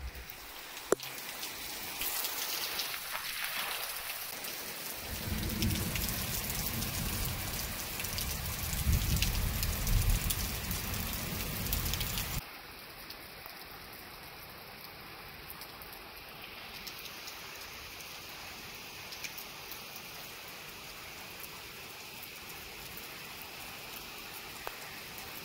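Heavy rain pouring down in a thunderstorm, a dense steady hiss with a low rumble through the middle. About halfway through it drops suddenly to a lighter, even rain hiss.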